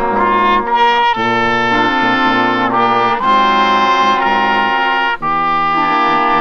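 Small brass ensemble led by trumpets, with lower brass underneath, playing a series of held chords that shift every second or two.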